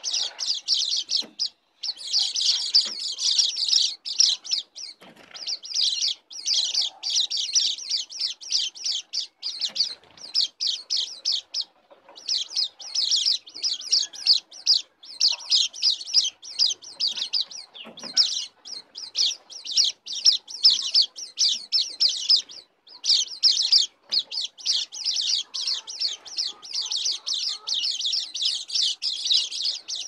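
A flock of white-eyes (pleci) twittering: rapid, high chirps in runs of a few seconds broken by short pauses.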